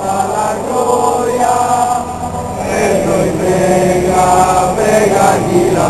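Many voices singing a slow religious chant together in long held notes, inside a large cathedral.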